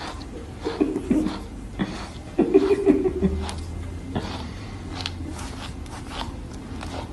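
A person laughing in two short bursts, about a second in and again about two and a half seconds in.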